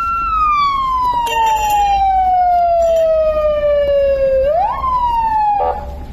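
A siren wailing: its pitch falls slowly for about four seconds, sweeps quickly back up, then falls again and cuts off near the end.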